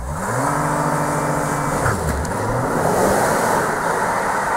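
2014 Audi A4 3.0 TDI's turbocharged V6 diesel pulling away hard under launch control. The engine note climbs quickly and holds, drops at a shift of the seven-speed dual-clutch gearbox about two seconds in, climbs again, then fades as the car drives off, leaving a loud steady rushing noise.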